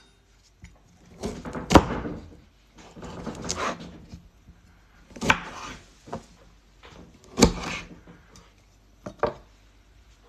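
Kitchen knife cutting a lime on a wooden cutting board: several slicing strokes, each ending in a sharp knock of the blade on the wood, with a quicker pair of light knocks near the end.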